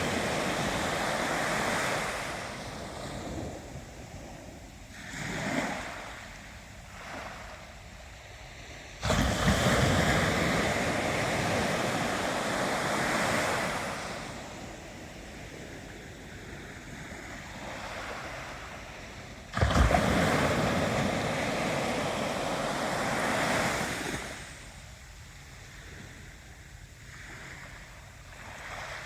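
Ocean waves breaking, with two sudden crashes about ten seconds apart, each followed by a long wash of surf that slowly dies away.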